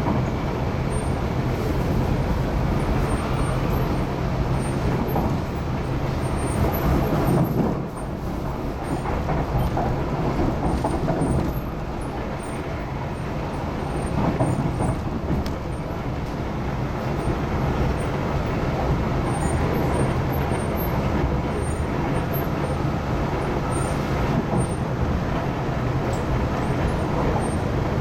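Cabin sound of an MTR East Rail line R-Train, a Hyundai Rotem electric multiple unit, running between stations: a steady rumble of wheels on rail and running gear with a low hum beneath. It dips briefly about 8 s in and is softer from about 12 to 14 s in before returning to the same level.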